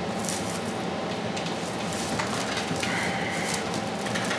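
Dry broomcorn straws rustling with scattered light crackles as twine is wound around the broom's bundles, over a steady background hum.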